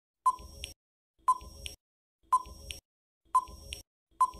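Countdown timer sound effect: five short beeps, about one a second, each followed closely by a softer click.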